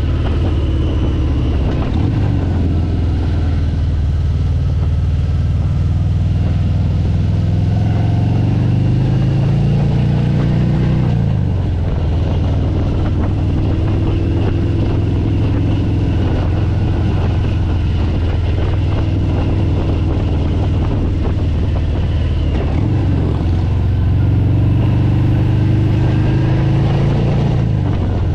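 Motorcycle engine under way, its note climbing as it accelerates, dropping sharply about eleven seconds in and climbing again near the end, with heavy wind rush on the microphone.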